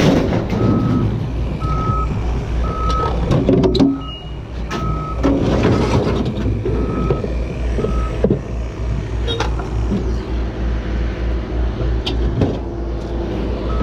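Reversing alarm on heavy scrap-yard machinery, beeping about once a second and stopping about eight seconds in, over a running diesel engine. A few sharp metal clanks are heard.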